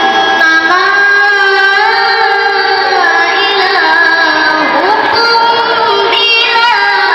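A boy qari reciting the Qur'an in the melodic tilawah style: one continuous sung line of long held notes, ornamented with pitch bends and slides.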